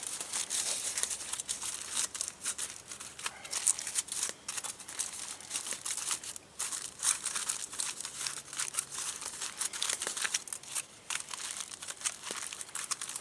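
Thin sheet being crinkled, folded and torn by hand, most likely aluminium foil shaped into a small tray, in irregular crackling bursts.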